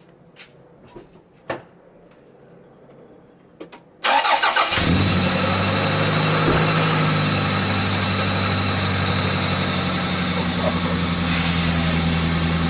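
A few light clicks, then about four seconds in the Toyota Celica's 5S-FE 2.2-litre four-cylinder engine cranks briefly on the starter, catches and settles into a steady idle, running with its newly fitted cold air intake.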